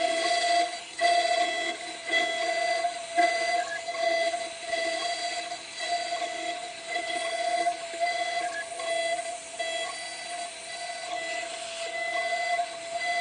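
CNC 6040 router at work: a steady high whine that holds one pitch throughout, with higher motor tones switching on and off in short stretches as the axes move. There are brief breaks about one and three seconds in.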